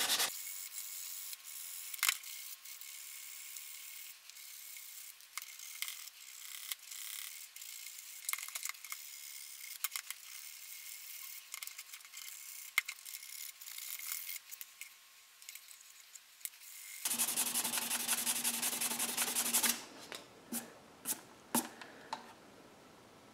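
A plastic tail-light lens being sanded by hand with a sanding pad: faint, intermittent rubbing and scratching strokes with small clicks. The rubbing grows louder and denser for a few seconds near the end, then gives way to a few sharp ticks.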